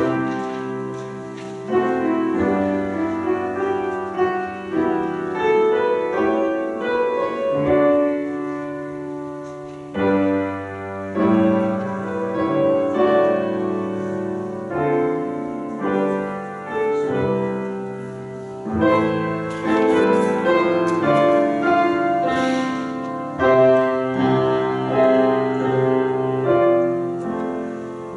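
Piano playing a slow church prelude: chords and melody notes struck and left to ring, swelling and fading every second or two.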